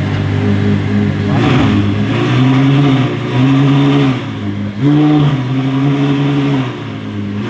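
Ferrari F12's 6.3-litre V12 idling, then raised to slightly higher revs about a second and a half in. It holds there with a few brief dips and eases back toward idle near the end.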